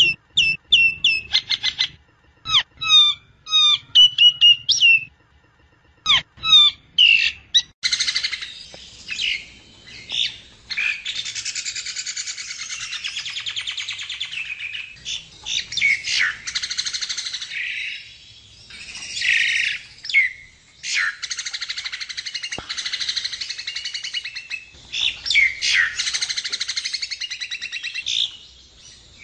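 Jalak nias myna song. It opens with a string of short, clear whistled notes that slide down in pitch, then from about eight seconds in breaks into a long, dense run of harsh chattering and squeaky notes, broken by a few short pauses.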